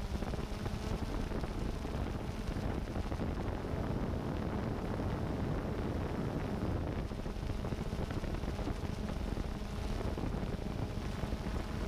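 Strong wind rushing over the microphone of a hovering DJI Phantom 2 quadcopter's camera, with a steady hum from the drone's propellers underneath.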